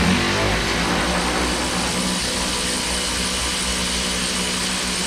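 Cordless power tool running flat out on a stubborn door hinge bolt, starting suddenly and holding a steady pitch. Right afterwards the owner says it sounds like its battery might be dying.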